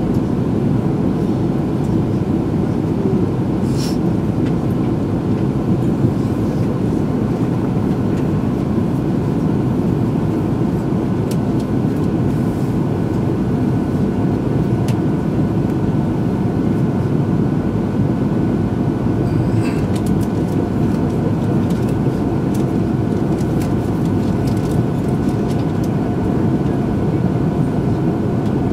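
Cabin noise inside an E2 series Shinkansen as it pulls out of the station and rolls along the platforms: a steady rumble with a few faint steady hum tones and a couple of faint clicks.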